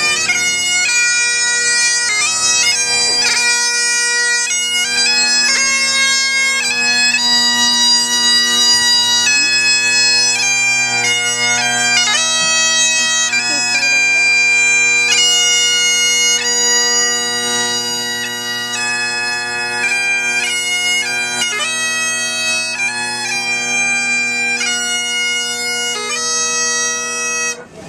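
Bagpipes playing a tune over steady drones; the playing cuts off suddenly near the end.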